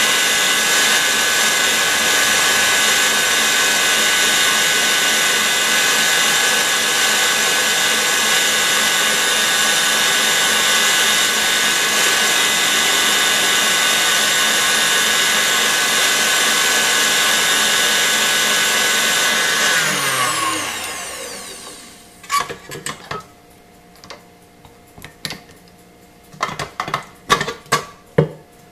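KitchenAid Heavy Duty stand mixer running at top speed, its wire whisk beating egg whites into stiff meringue in a steel bowl: a steady high whine. About 20 seconds in it is switched off and the motor winds down, falling in pitch, followed by a series of sharp metallic clicks and clinks as the bowl and whisk are handled.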